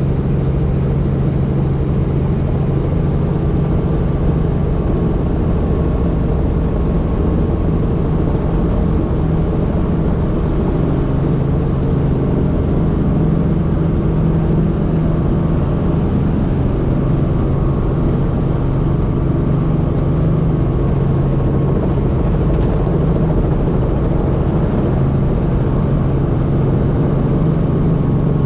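Helicopter in flight: a loud, steady drone of rotor and turbine with an even low hum.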